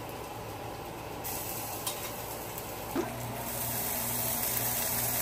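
Fresh ginger-garlic paste sizzling in hot oil with whole spices. The hiss grows louder about a second in and again past three seconds, with a couple of light knocks and a low steady hum underneath.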